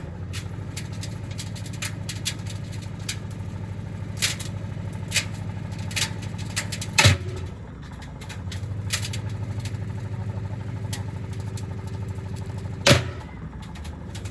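Gorenje SensoCare washing machine running with heavy bricks in its drum: a steady low hum with the bricks knocking and clattering inside. The loudest bangs come about seven seconds in and near the end.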